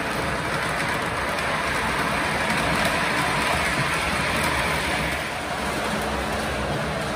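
O gauge model freight cars rolling past on three-rail track, a steady rolling clatter of their wheels. It dips slightly about five seconds in.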